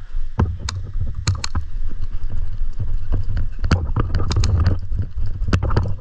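A steady low rumble on the microphone, with irregular sharp clicks and snaps scattered through it, in a cluster about four seconds in.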